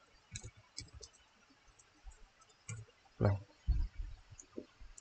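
Keys being typed on a computer keyboard: a run of light, separate key clicks, then two louder, duller knocks about three seconds in.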